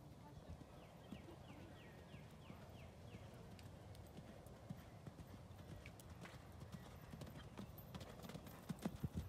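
A horse's hooves cantering on sand arena footing: faint, dull thuds that become stronger near the end as the horse comes close.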